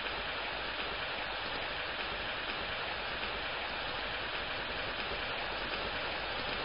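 A steady, even hiss of rain from a rain sound effect added in editing.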